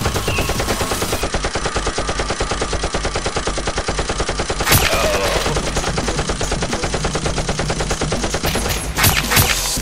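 Rapid automatic gunfire sound effect, an unbroken stream of shots dubbed over a Nerf blaster shootout, with louder cracks about five seconds in and again near the end.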